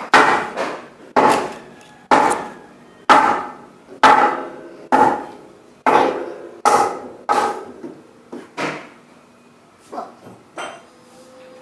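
Hammering: a series of sharp, briefly ringing strikes, about one or two a second, thinning to a few softer knocks in the last couple of seconds.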